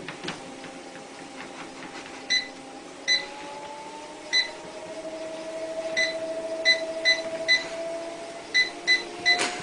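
Treadmill control panel beeping about ten times as its buttons are pressed, the beeps coming quicker in the second half, over the steady whine of the treadmill's motor, which slowly rises in pitch as the belt speeds up.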